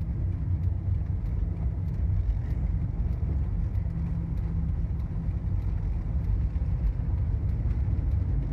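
Car driving, heard from inside the cabin: a steady low rumble of engine and tyre noise on the road.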